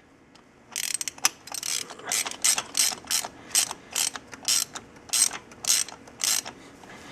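Socket ratchet wrench turning a spark plug back into the cylinder head, its pawl clicking in about a dozen short runs, roughly two a second, as the handle is swung back and forth.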